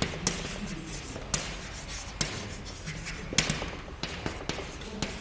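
Chalk writing on a blackboard: irregular sharp taps as the chalk strikes the board, with scratchy strokes between them.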